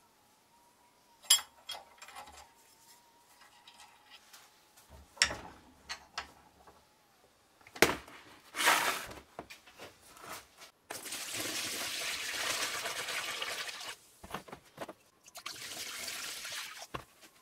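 A few sharp metal clinks and knocks, then liquid pouring into a plastic tub in two long, steady runs, filling a rust-removal bath.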